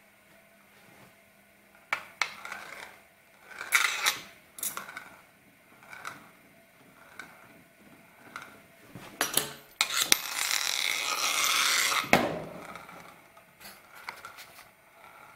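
Small metal spinning tops clinking and scraping against a glass mirror surface, a string of sharp clinks, some ringing briefly. About ten seconds in there is a steady rubbing rush lasting about two seconds.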